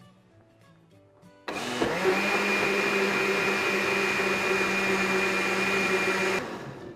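Countertop blender running, grinding soaked sunflower seeds in water into a plant milk. It starts about a second and a half in, comes up to a steady whine within half a second, and shuts off shortly before the end.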